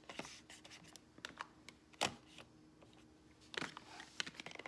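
Light clicks and taps of makeup items and plastic parts being handled in a plastic makeup organizer case, with a sharper knock about two seconds in and a quick cluster of clicks about three and a half seconds in.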